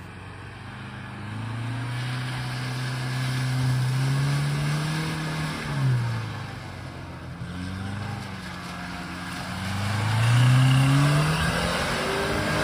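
Engine of a 2009 Liebao 2.4-litre four-wheel-drive SUV pulling under acceleration: its pitch climbs, drops sharply at a gear change about six seconds in, then climbs again, with road and tyre noise underneath.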